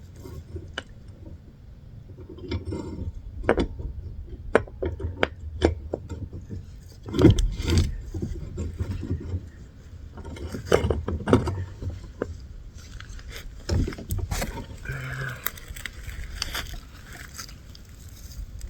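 Irregular metallic clanks, knocks and scrapes of parts being handled while a rear wheel is worked onto a mini bike frame, over a low rumble.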